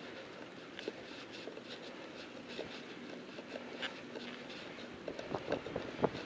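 Bicycle rolling over city pavement: faint irregular clicks and rattles, with a few sharper knocks near the end.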